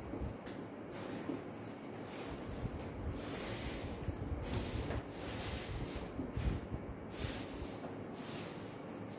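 Whiteboard duster rubbed across a whiteboard to erase it: a run of swishing wiping strokes, about one a second.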